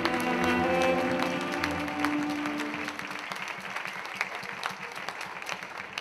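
Music of sustained, held notes fading out over the first three seconds while an audience applauds; after the music dies away the scattered clapping carries on alone.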